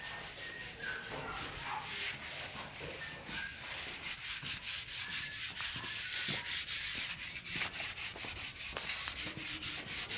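Hand sanding on a wall: quick, even rasping strokes, about four to five a second, a little louder around the middle.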